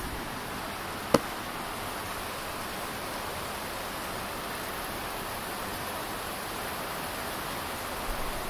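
Steady rain falling, an even hiss, with one sharp click about a second in.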